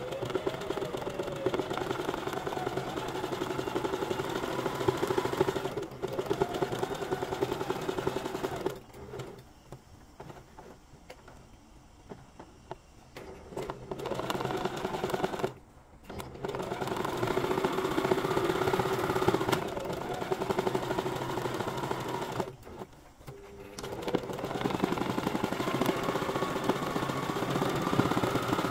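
Domestic sewing machine stitching in zigzag for free-motion embroidery, running in four bursts with short stops between, its motor whine rising and falling as the speed changes.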